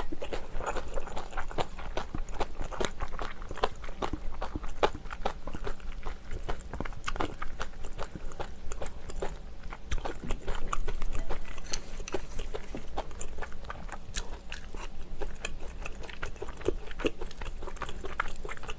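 Close-miked chewing and mouth sounds of someone eating rice with kimchi stew, a steady run of short clicks.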